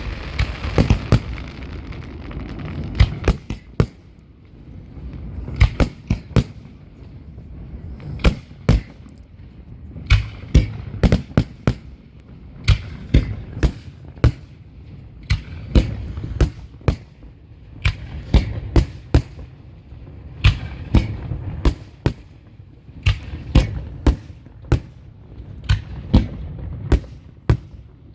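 Fireworks bursting overhead: dozens of sharp bangs in irregular, often rapid succession, with a low rumble between them.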